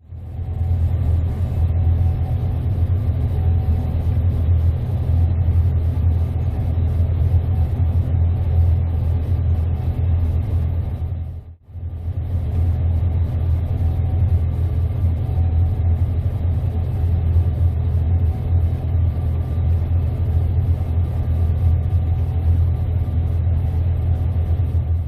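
Gleaner S98 combine harvester running steadily while cutting wheat: a continuous deep, even drone with faint steady whining tones above it. It breaks off briefly near the middle.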